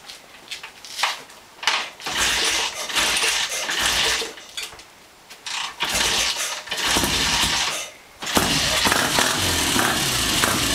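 1967 BSA Lightning 650's parallel-twin engine being kick-started: it fires in several short bursts that die away, then catches about eight seconds in and keeps running.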